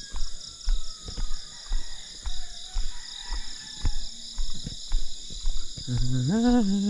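Steady high-pitched chorus of insects, crickets or similar, with a string of short soft thumps. About six seconds in, a person starts humming a low note.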